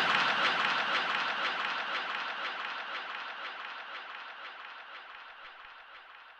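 Audience laughing and applauding on a recorded comedy track, fading out steadily to very faint by the end.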